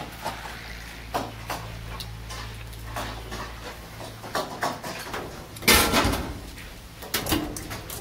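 Metal kebab skewers clinking as a bunch of them is carried, then a loud metallic clatter about six seconds in as they are laid down on a metal counter, followed by a few lighter knocks.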